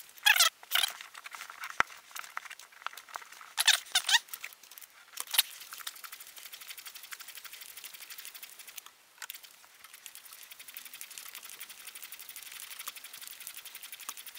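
Hand ball pump forcing air through an inflation needle into a rugby ball: about five squeaky, wheezing pump strokes in the first five seconds or so, some falling in pitch. After that only a faint, fast, even ticking is left.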